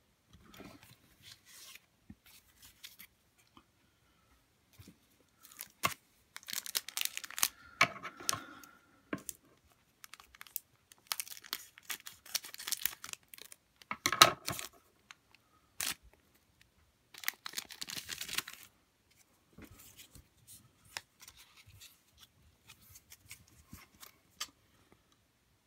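Scissors cutting open the foil wrapper of a Pokémon card booster pack, with crinkling of the wrapper in three bursts and sharp snips, the loudest about two-thirds of the way through. Quiet clicks of playing cards being handled come before and after.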